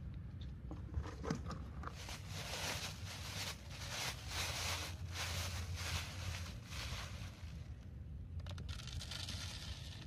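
Rustling and crunching of a plastic bag of unhusked rice grains being handled as the grains are scooped out, in uneven bursts over a low steady hum.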